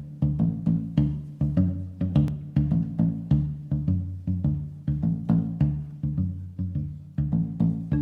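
Background music with a steady percussive beat and a repeating low bass line.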